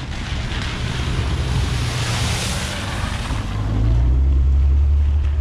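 A car driving through a shallow ford, its tyres splashing through the water, with the splash loudest about two seconds in. A low rumble swells louder from about four seconds in.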